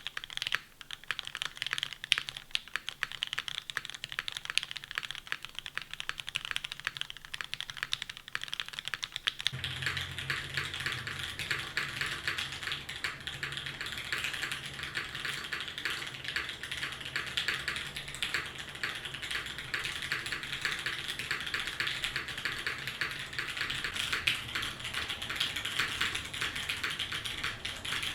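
Custom mechanical keyboard being typed on continuously: OP Black switches lubed with 205g0 on a carbon fiber plate, under GMK keycaps. About a third of the way in, the keystrokes become denser and fuller, with a deeper thock under the clacks.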